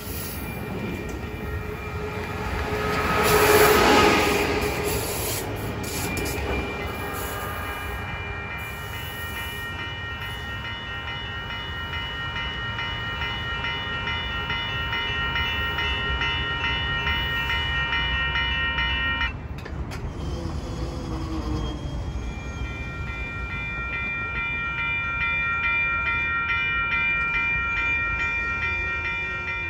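Passenger train passing close by with a loud rush of wheels on rail, then long steady blasts of a train horn. After a cut, a Capitol Corridor cab car's Nathan K5LA five-chime horn sounds with a fouled chime as the train approaches.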